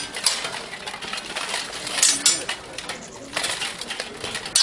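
Steel longswords clashing and plate armour clanking as two armoured fighters spar: a string of sharp metallic strikes with ringing, loudest about two seconds in.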